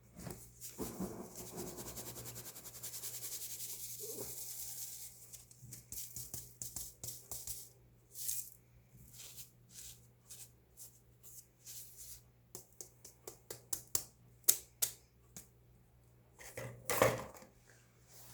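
Baking soda crunching and crumbling: a dense, continuous crackle for the first few seconds, then a run of sharp, separate crunches, with one louder crunch near the end.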